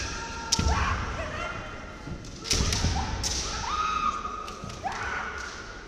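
Kendo fighters' kiai shouts, drawn-out and sliding in pitch, with two bursts of sharp bamboo shinai clacks and heavy foot stamps on the wooden sports-hall floor, about a second and two seconds in, ringing in the hall's echo.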